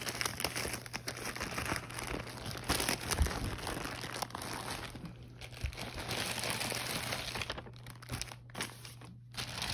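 Plastic poly mailer crinkling and rustling as a hand works it open and reaches inside, in irregular bursts that ease off about five seconds in and again near the end.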